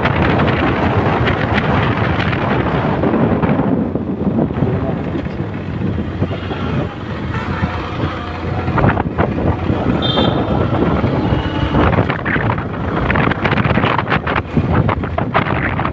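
Wind buffeting the microphone on a moving motorcycle, with the bike and road noise running underneath; the wind eases for a few seconds in the middle.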